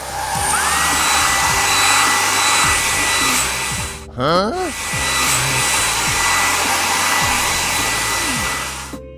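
Cartoon car-wash air blower drying a vehicle: a steady loud rushing of air with a high whine that rises as it spins up and then holds. About four seconds in the blowing breaks off briefly for a short wavy rising sound effect, then starts again.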